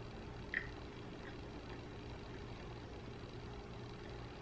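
Person chewing food with the mouth closed, giving a few faint mouth clicks, the sharpest about half a second in, over a steady low hum.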